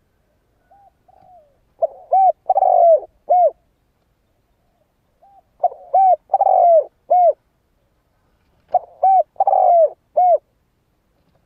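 Spotted dove cooing: three phrases about three and a half seconds apart, each opening with a couple of soft notes and then three or four loud coos, the middle one drawn out.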